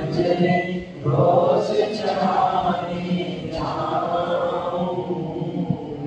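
A man's voice chanting a devotional recitation solo, drawing out long sustained notes.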